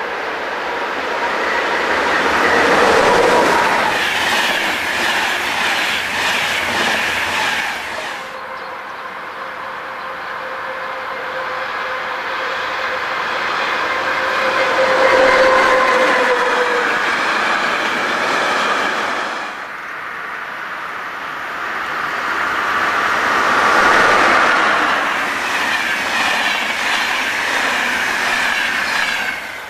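Electric-hauled trains passing close by on electrified track, wheels clattering over the rail joints, with a steady whine over the running noise. Three separate passes cut together: a passenger train, then a freight train of covered wagons from about eight seconds in, then another passenger train from about twenty seconds in.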